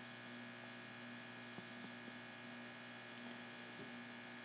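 Low steady electrical hum, mains-type, with a few faint clicks.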